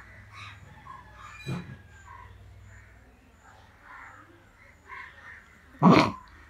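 Domestic fowl calling now and then in the background, in short faint calls. One loud, sudden noise stands out about six seconds in.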